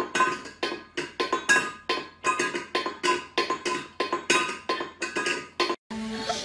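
A music track of short, knocking notes like a wood block, about three a second, with a steady repeating melody; it cuts off abruptly near the end, where a different, steadier sound takes over.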